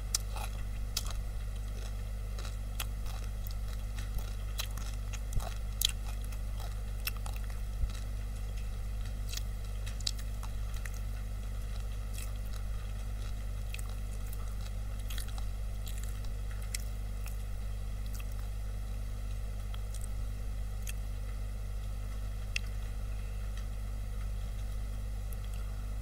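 Steady low hum with scattered small clicks and crackles over it, the loudest clicks coming in the first eight seconds.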